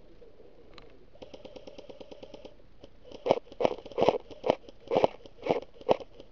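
Airsoft gun fire: a quick full-auto burst of about a second and a half, then seven louder single shots about half a second apart.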